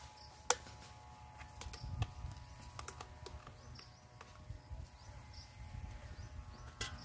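A spoon scraping and clicking against a plastic tub and a steel bowl while paste is scooped out, in scattered light taps with a sharper click about half a second in, over a low outdoor rumble.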